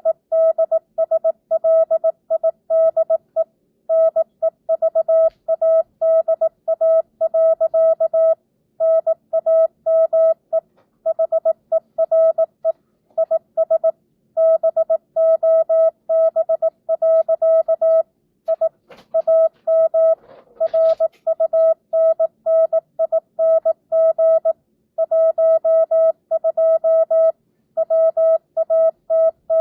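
Morse code (CW) sent as a single steady mid-pitched beep keyed on and off in dots and dashes at 18 words per minute, with standard (non-Farnsworth) spacing between characters and words. It is part of a simulated amateur-radio CW exchange (QSO).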